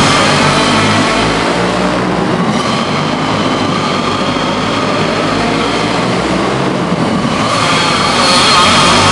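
Several racing go-kart engines running hard around an indoor dirt oval, a continuous high engine whine from the pack. It is louder at the start and again near the end.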